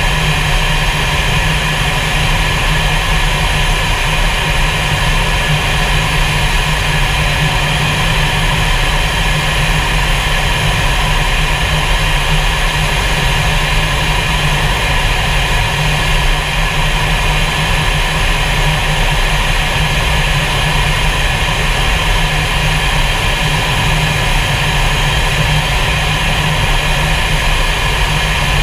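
Fighter jet's engines and the rushing airflow heard from inside the cockpit: a loud, steady noise that does not change for the whole stretch.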